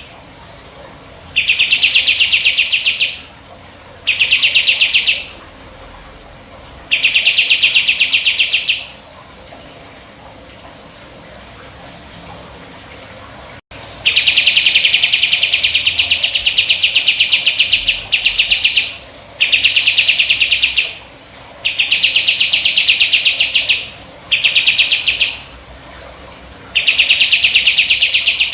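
A songbird kept by Indonesian bird fanciers as a 'jenggot' bird, singing its 'tembakan': rapid, machine-gun-like trills, each one to three seconds long and repeated again and again with short pauses, with a longer pause in the middle.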